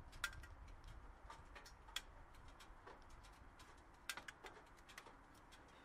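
Near silence: faint background hum with a few soft, scattered clicks.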